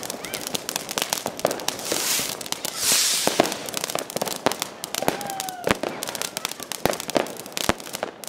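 Ground fireworks fountain spraying sparks with dense crackling and popping. A rushing hiss swells around two to three seconds in, a brief whistling tone sounds about five seconds in, and several sharper bangs come in the second half.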